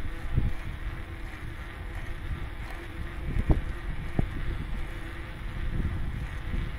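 Wind buffeting the microphone while moving along a road, over a low steady hum, with a sharp knock about three and a half seconds in.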